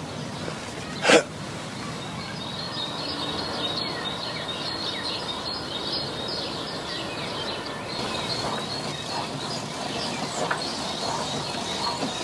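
Small birds chirping and singing in trees, many short high calls from about three seconds in, over a steady faint hiss of outdoor air. A single short, loud, sharp sound about a second in is the loudest thing heard.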